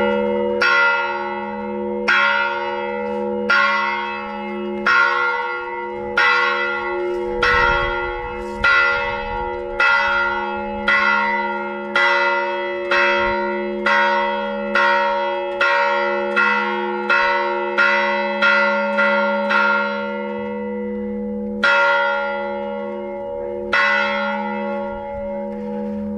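A church bell struck over and over, about one stroke a second, each ring running on into the next. Near the end the strokes pause, then come twice more, slower.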